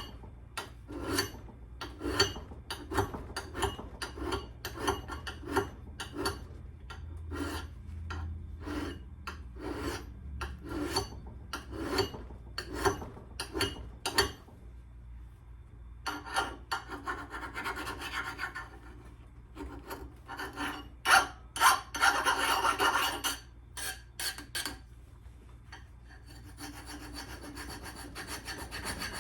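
Hand file drawn across the steel edge of an old axe head to sharpen it: a metal rasp in quick strokes, about two a second. A little past halfway come longer, louder strokes, and near the end the rasping turns fainter and steadier.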